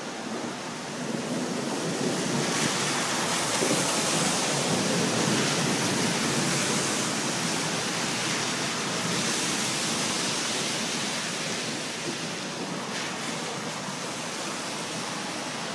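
Heavy thunderstorm rain pouring down, a steady rushing noise that swells a couple of seconds in and slowly eases toward the end.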